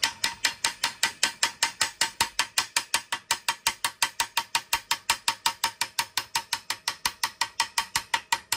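Chipping hammer tapping rapidly and evenly along a fresh MIG weld bead on steel, about seven strikes a second, each with a short metallic ring. It is knocking the dust and residue off the weld to leave the bead bright.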